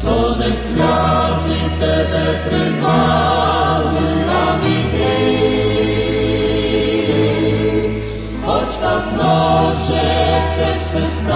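Choir singing a Ukrainian gospel hymn in full chords that change every couple of seconds, over sustained low bass notes.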